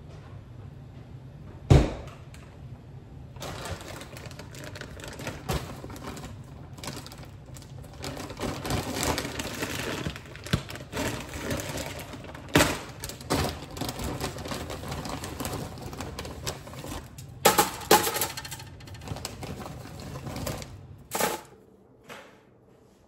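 Irregular clicks, knocks and clatter of hard objects being handled, with a sharp knock about two seconds in and a burst of louder knocks toward the end.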